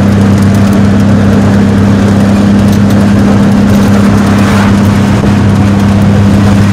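Steady drone of a car driving at cruising speed on an asphalt road: an even engine hum under tyre and road noise. An oncoming car swishes past about two-thirds of the way in.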